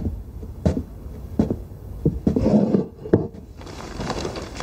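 Footsteps on a wooden floor, one step about every 0.7 seconds, with a brief rustle of newspaper about halfway through.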